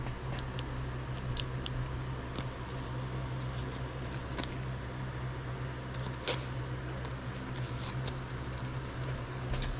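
Light scattered clicks and rustles of a trading card being handled in gloved hands, one a little sharper a bit past the middle. A steady low hum runs underneath.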